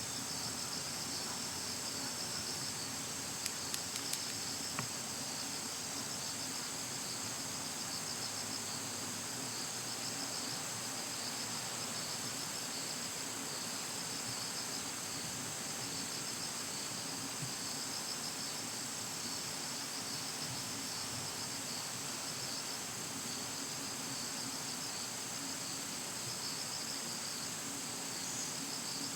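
Insects chirring steadily in the background: a rapid pulsing trill over a constant high-pitched whine. A few short clicks come about four seconds in.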